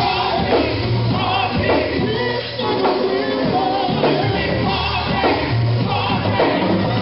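A gospel vocal group singing live, a lead voice with backing singers, over instrumental backing with a steady bass line and a drum beat.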